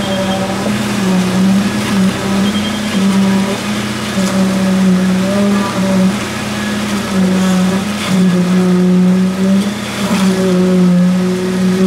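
Concrete mixer truck's engine running fast to turn the drum while concrete discharges down the chute: a steady hum whose revs and level rise and dip every second or so, with a couple of faint knocks near the end.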